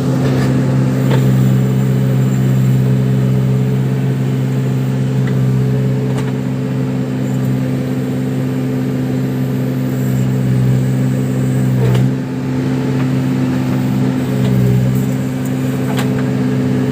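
Case 580 Super backhoe loader's diesel engine running steadily under working load, its note easing briefly twice. A few sharp knocks sound over it.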